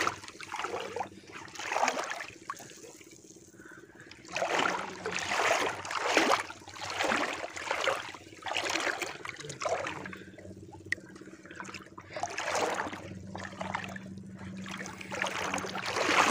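Shallow seawater sloshing and splashing as a person wades through it, in irregular surges every second or two.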